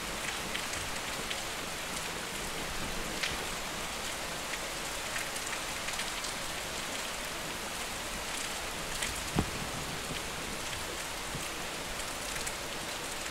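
Steady rain falling, an even hiss with scattered single drops tapping close by; one sharper drop tap about nine seconds in stands out.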